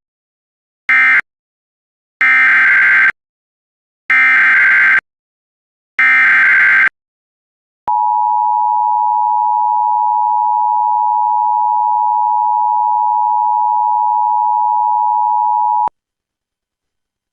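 Emergency Alert System tones. First comes the last of three short end-of-message data bursts, then three longer warbling SAME header data bursts a couple of seconds apart that open a new alert. After them the steady two-tone EAS attention signal sounds for about eight seconds and cuts off abruptly.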